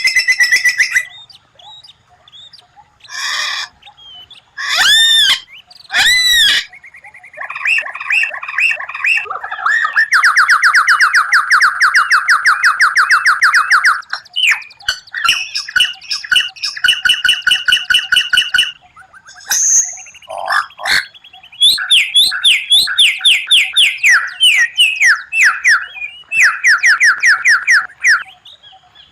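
White-rumped shama (murai batu) singing a varied song. Short whistled phrases and sweeping notes alternate with long rapid trills, the longest running about four seconds near the middle, with brief pauses between phrases.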